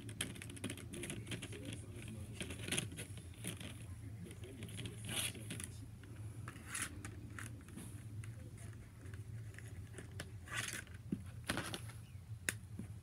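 Faint scratching and rustling of thin paper being coloured in and handled, in short irregular strokes with a few sharper rustles scattered through.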